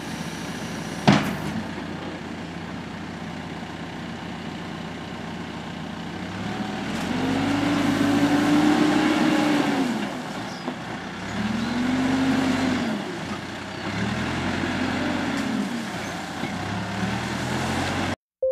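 Backhoe loader's diesel engine running at idle, then revving up and falling back three times as the machine drives and turns, with one sharp knock about a second in.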